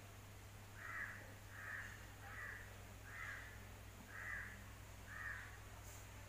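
A bird calling six times, one short call about every second.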